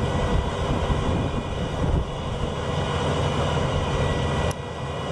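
A vehicle engine running steadily: an even, deep rumble with a faint whine over it.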